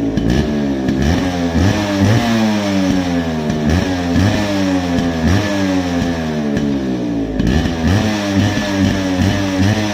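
Yamaha RX-135's single-cylinder two-stroke engine with its stock exhaust, revved in quick repeated throttle blips: the pitch jumps up and falls away about twice a second.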